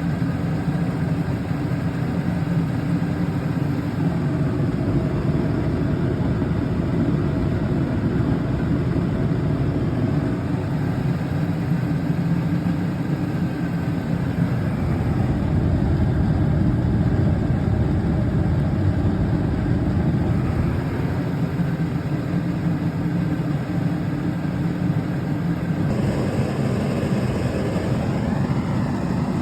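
Dehumidifier running: a steady hum of compressor and fan. The tone shifts about four seconds in and again near the end, when a brighter, hissier noise joins.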